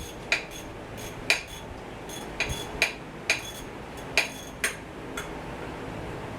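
Metal tools and parts clinking against each other in irregular, sharp metallic clinks, about a dozen over six seconds, each ringing briefly.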